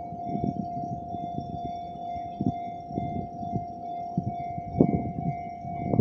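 Railway level-crossing warning alarm ringing steadily while the crossing signals flash, the sign that a train is approaching. Irregular low rumbles sit beneath it, loudest about five seconds in.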